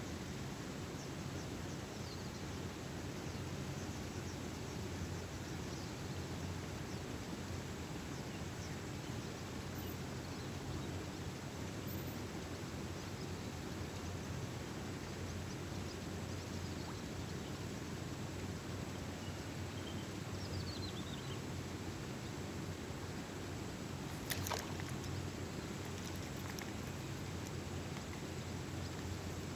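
Steady low rushing outdoor background noise, with a few faint high chirps and a single sharp click about twenty-four seconds in.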